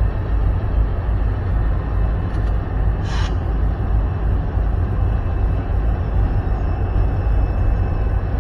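Steady low rumble of a freight train hauled by two EMD SD40-2 diesel locomotives, whose 16-cylinder two-stroke engines are working as the train crosses a long steel bridge at a distance. A short hiss sounds about three seconds in.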